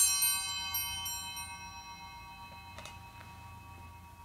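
Altar bells ringing out the elevation of the host at the consecration, their many tones fading slowly over two or three seconds. Two faint clicks near the end.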